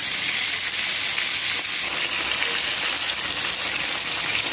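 Pieces of desalted pork charque frying in hot oil in a pan, a steady, dense sizzle.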